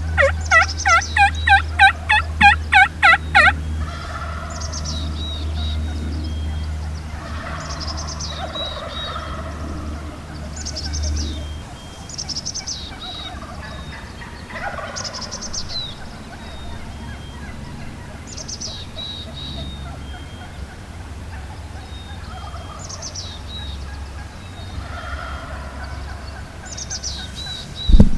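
Turkey yelping: a loud series of about a dozen evenly spaced yelps over the first four seconds, followed by fainter calls every two to three seconds. A low steady hum runs underneath for the first half.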